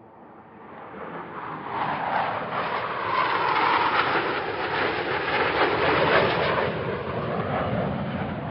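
Jet noise sound effect swelling up from silence over about three seconds, then holding loud, its rush shifting lower toward the end like a jet passing by.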